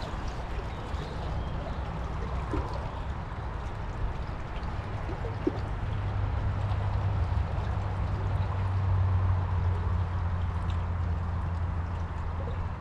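River current rushing and gurgling steadily, with a low rumble that grows stronger about six seconds in.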